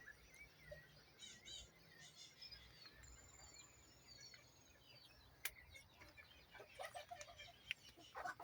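Faint birdsong: scattered chirps and short whistles from several birds, with a few lower clucking calls near the end.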